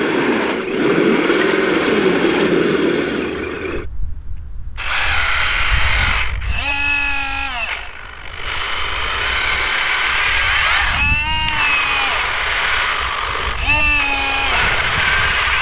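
Electric drive motors and gearing of a radio-controlled Liebherr wheel loader model whining as it works in sand, the pitch wavering up and down. After a short break about four seconds in, there is a low rumble and a few shorter whines that glide up and down in pitch.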